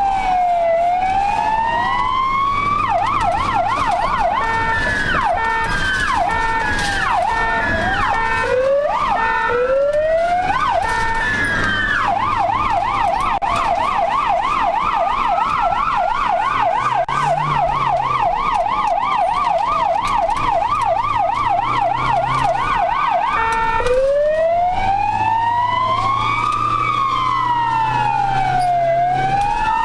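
Ambulance siren heard from inside the cab, cycling through its modes. It starts with a slow rising-and-falling wail, then gives quick swoops and chirps, then a fast warbling yelp for about twelve seconds, and returns to the slow wail near the end. The vehicle's engine hums low underneath.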